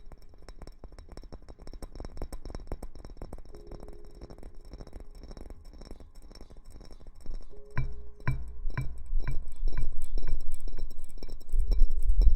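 Close-miked ASMR rustling: dense fine crackling, which about two-thirds of the way in becomes rhythmic rubbing strokes, about two a second, that grow louder.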